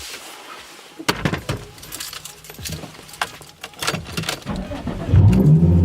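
Scattered sharp metallic clicks and jingling, like keys or small metal parts being handled. About five seconds in, a much louder, steady droning hum starts suddenly.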